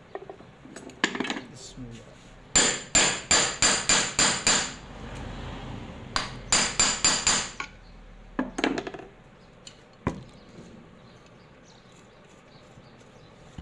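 Hammer blows on metal, in two quick runs: about seven strikes, a short pause, then about five more, each with a brief metallic ring. A few lighter knocks come before and after the runs.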